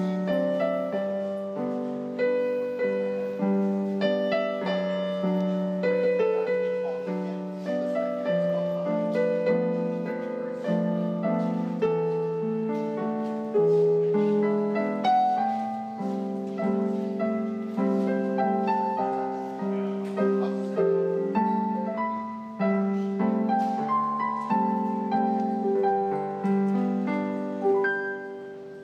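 Solo piano music with an even, measured beat, notes struck and dying away one after another, fading out near the end.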